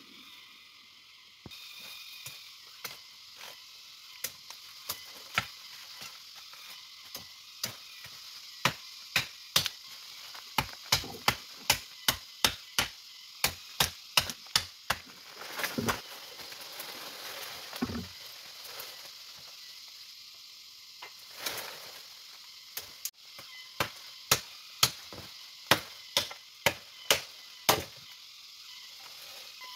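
Hand-tool chopping: sharp strikes, scattered at first, then in two long runs of two to three a second, with two heavier, deeper thuds between the runs. A steady hiss lies underneath.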